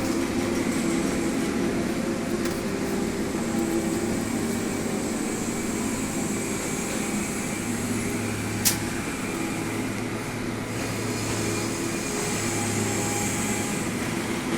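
Heavy construction machine's engine running steadily, a deep even hum. A single sharp knock comes about nine seconds in.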